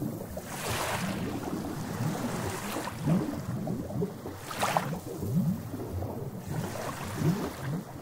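Sea waves lapping and washing ashore, with a hissing surge of surf about a second in and again past the middle.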